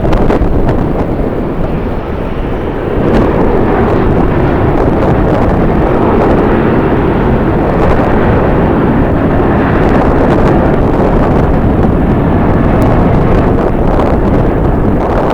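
Strong wind buffeting the microphone, a loud, steady rushing noise that eases briefly a second or two in.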